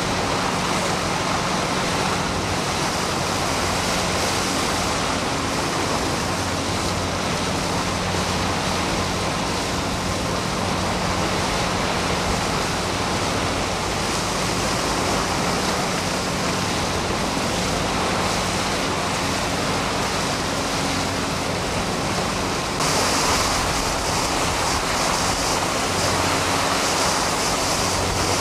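Steady rush of wind and choppy water heard from a moving boat, with a low steady engine hum underneath. Near the end the rush turns louder and brighter.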